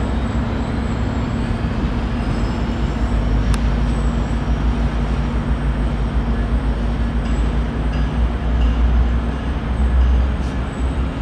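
GO Transit F59PH diesel locomotive running as it draws slowly closer at the head of its train: a steady low engine rumble with a constant hum, a little fuller near the end.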